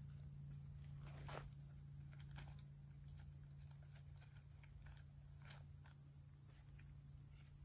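Near silence: faint scattered clicks and rustles of small gear being handled, over a low steady hum.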